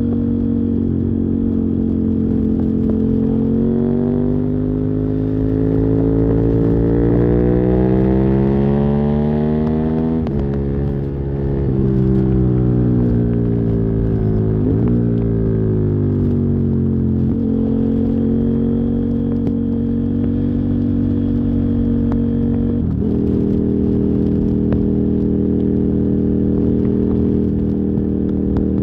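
KTM 990 Super Duke R's 999 cc V-twin through dual Yoshimura carbon exhausts, on the move. It revs up steadily from about 3 to 10 seconds in, falls away as the throttle comes off until about 17 seconds in, then settles into a steady cruise with a short break in the note about 23 seconds in. The sound is picked up by a phone microphone in the rider's backpack.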